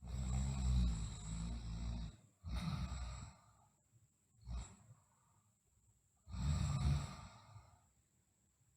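A sleeping girl snoring: a long snore at the start, a shorter breath just after, a brief breath about four and a half seconds in, and another long snore about six seconds in, with quiet pauses between.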